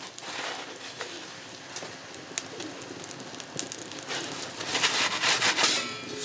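Pigeon cooing in the background, with a metal pizza peel scraping over the oven's stone baking slab, loudest about five seconds in.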